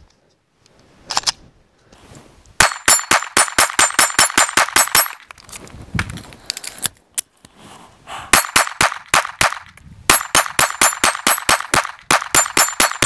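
A P80-framed Glock 19 Gen 3 9mm pistol fired in rapid strings of several shots a second, with a few single shots between, as fast as it will cycle. Steel plate targets ring under the hits.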